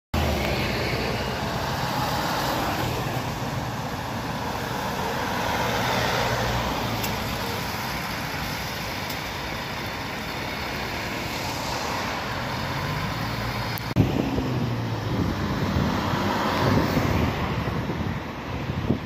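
City buses' diesel engines running and driving past amid steady road traffic noise. A sharp click comes about three-quarters of the way through, followed by gusty wind noise on the microphone.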